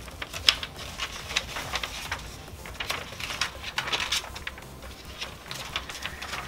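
Rolled paper being unrolled and handled, rustling and crinkling in short irregular bursts, with one sharper tap about half a second in.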